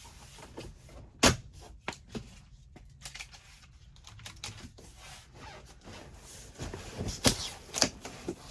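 Cardboard shipping box being opened and its contents handled: scattered sharp knocks and clicks with rustling, the loudest knock about a second in and a cluster of knocks near the end.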